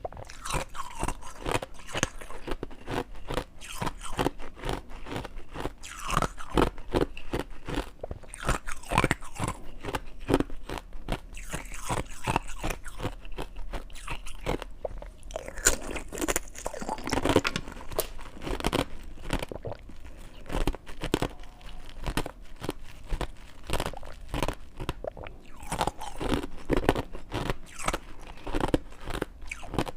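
Ice being bitten and chewed close to the microphone: a dense, irregular run of sharp crunches and cracks.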